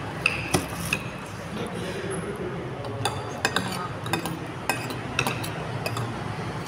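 Eating by hand: fingers pick at a fried catfish on a plate, with a scattering of small sharp clicks and clinks against the plate and close chewing. A steady low hum runs underneath.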